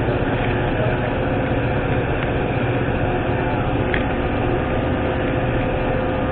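Metra commuter train with its diesel locomotive running, a steady engine drone with a constant hum.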